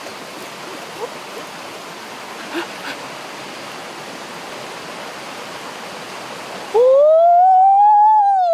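Steady rushing of a rocky forest stream. Near the end a young man gives one loud, drawn-out cry that rises and then falls in pitch.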